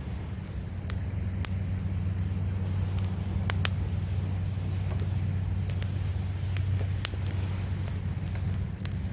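Wood fire crackling, with irregular sharp pops scattered through, over a steady low rumble of sea waves.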